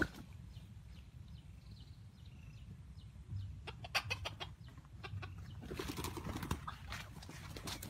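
A rooster clucking: a quick run of short clucks about four seconds in, then a longer stretch of clucking from about six seconds to near the end.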